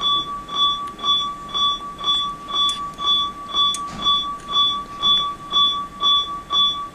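Bedside patient monitor beeping steadily, a short high electronic beep about twice a second at one unchanging pitch.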